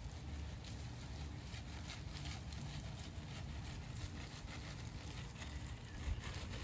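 Light, irregular rustling and ticking, like granules being scattered over grass, over a low wind rumble on the microphone.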